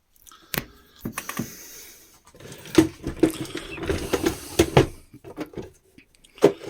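Clicks, knocks and scraping of hard plastic parts being handled, as a speaker is worked loose and turned round inside the radio's housing.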